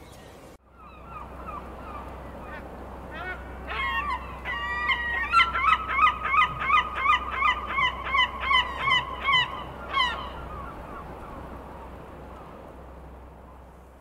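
A flock of gulls calling. Scattered harsh calls build into a fast, even run of loud calls, two to three a second, which stops about ten seconds in. A steady low rumble runs underneath.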